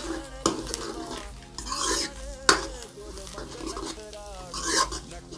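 Steel ladle stirring and scraping a spiced potato samosa filling around a metal kadai, in repeated swishes with sharp clinks of the ladle on the pan about half a second and two and a half seconds in.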